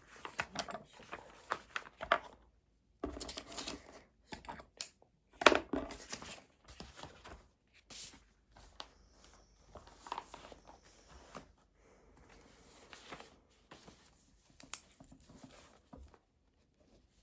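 Irregular rustling and crinkling of paper or packaging with small knocks of objects being handled on a desk; the loudest knock comes about five and a half seconds in.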